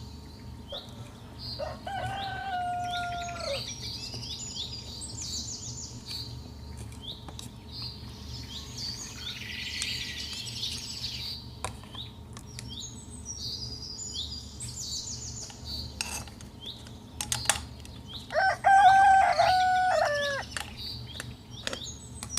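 A rooster crowing twice, the second crow the louder, over steady chirping of small songbirds.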